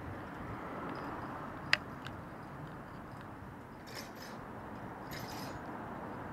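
Steady wind and road noise from riding, with one sharp click a little under two seconds in, a fainter click just after, and two short rattles around four and five seconds in.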